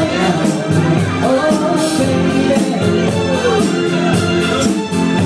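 A live band playing, picked up on a phone's microphone: guitar and singing over a steady drum beat.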